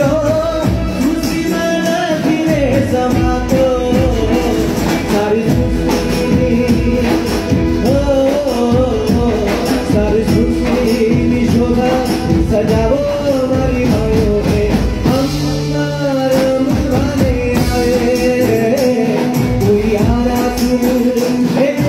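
Live band music, loud and continuous: electric guitar and a bank of drums keep a steady dance rhythm under a wavering melody line.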